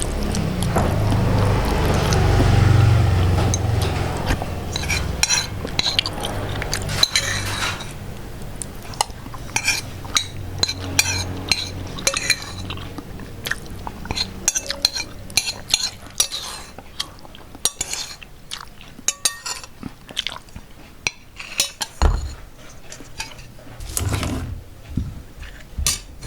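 Metal spoon clinking and scraping against a plate while eating, in many short, irregular clinks. The first several seconds are denser and louder, with a low rumble under the clinks.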